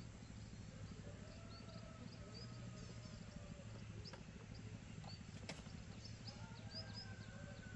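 Faint animal calls: many short, quick chirps and a few longer gliding calls over a steady low rumble, with a couple of sharp clicks.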